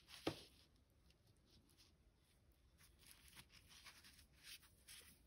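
Near silence with faint rustling of yarn being drawn through crochet stitches with a yarn needle, and one soft knock about a quarter second in.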